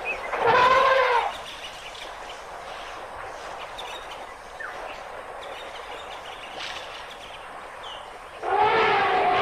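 African elephant trumpeting: a loud call about half a second in that lasts about a second, and a second, longer trumpet near the end, over a steady outdoor background.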